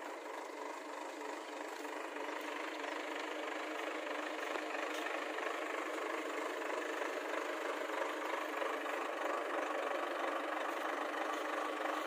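JCB 3DX backhoe loader's diesel engine running steadily while the backhoe arm works, growing a little louder throughout.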